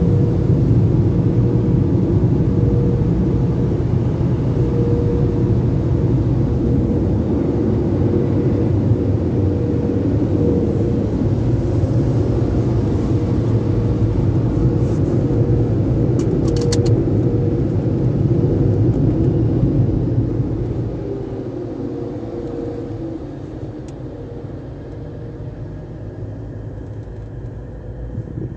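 Car wash tunnel dryer blowers running with a steady loud rumble and hum, heard from inside the car. The sound drops off about twenty seconds in as the car pulls away from the tunnel exit.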